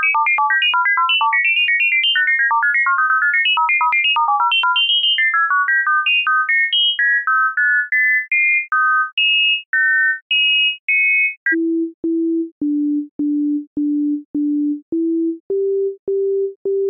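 Ghost Tones synth plugin playing rapid pairs of pure sine tones high up, two at once on every note, in a fast run that slows after about six seconds; each pair is chosen so that the ear makes a third, lower combination tone (otoacoustic emission) at the played note. About twelve seconds in it switches to the plain MIDI notes themselves: single low sine tones in a slow, steady melody.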